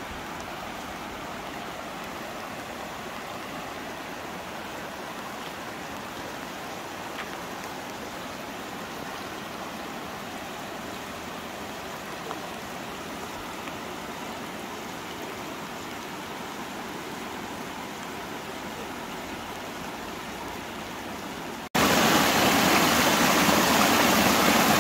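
Steady rush of water flowing through flooded rice paddies and spilling over the field bunds. About 22 s in it turns suddenly much louder and closer: fast muddy water running and swirling right by.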